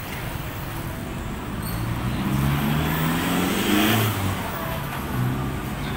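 A motor vehicle's engine passing close by, growing louder to a peak a little past halfway and then fading.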